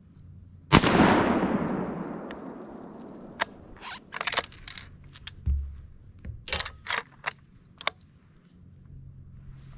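A single rifle shot about a second in, its report echoing and fading over about two seconds, followed by a run of sharp clicks and scrapes.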